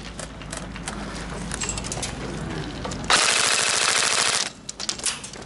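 A Tokyo Marui HK416D airsoft electric rifle (AEG) fires one full-auto burst of about a second and a half, about three seconds in, a fast even rattle of shots that stops abruptly.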